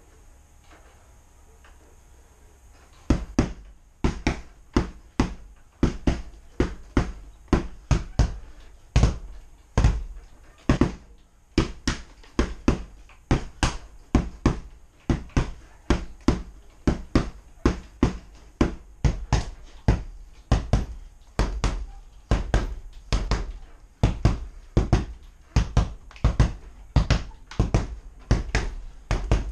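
Punches landing on a hanging punching bag in a steady run of sharp thuds, about two to three hits a second, starting about three seconds in.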